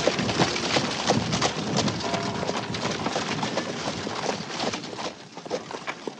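A single horse pulling a buggy, its hooves clip-clopping at a trot on a dirt street. The hoofbeats fade toward the end as it passes.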